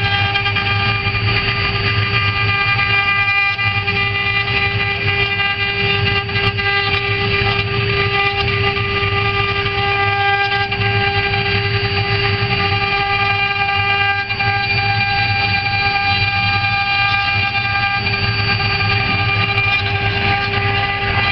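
Spindle motors of a four-spindle CNC router running at speed while engraving bits carve relief patterns into wooden boards: a steady high whine of several held tones over a low hum.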